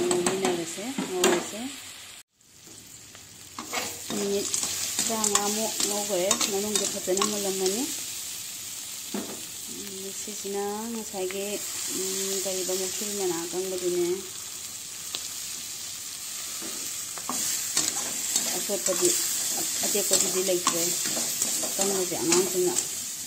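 Snails stir-frying in a hot steel wok, sizzling steadily while a metal spatula scrapes and clinks against the pan in repeated strokes. A low voice-like sound is heard on and off in the background.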